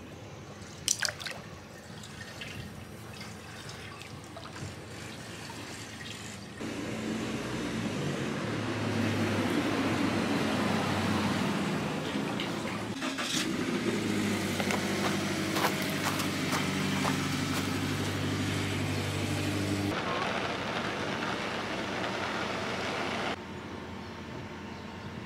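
Hot-spring water running and dripping in an open-air footbath, growing louder about a quarter of the way in. A steady low hum sounds over the water through the middle, and the water sound cuts off shortly before the end.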